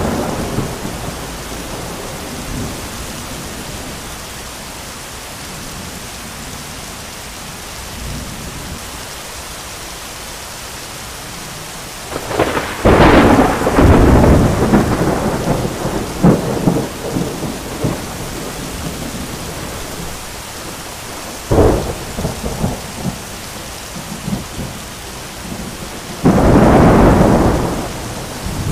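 Heavy rain falling steadily with thunder. A long rolling crack of thunder comes about halfway through, a sharp clap follows a few seconds later with smaller rumbles, and a loud rumble comes near the end.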